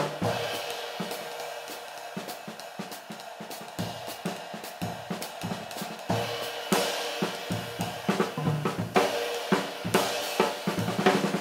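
22-inch riveted PGB Stellar ride cymbal played with a wooden drumstick in a steady run of strokes. Its wash and rivet sizzle ring on beneath the strokes, with louder accents about six and nine seconds in and low drum thumps underneath.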